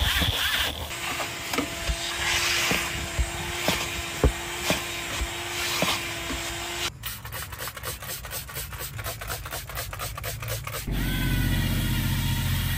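Scrubbing and rubbing strokes of cleaning, a brush or cloth worked over a surface, with scattered knocks. After a sudden change partway through comes a rapid run of about five strokes a second. Near the end a louder, steady, low motor sound starts.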